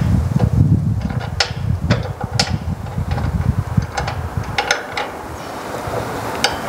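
Irregular metal clicks and knocks, about a dozen, as a leg is fitted and bolted onto a four-frame stainless steel honey extractor, over a low rumble that fades about halfway through.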